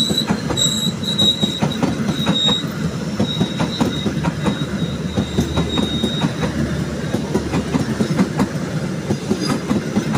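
Pangrango passenger train's coaches rolling past close by, wheels clacking steadily over the rail joints. A thin high squeal comes and goes during the first six seconds or so.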